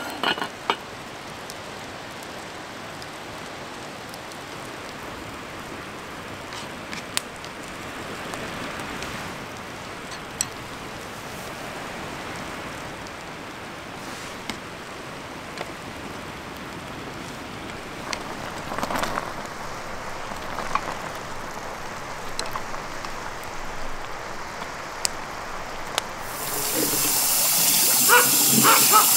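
Steady low hiss of outdoor ambience broken by scattered small clicks and knocks. About 26 seconds in, a much louder, bright rushing hiss starts suddenly and keeps going.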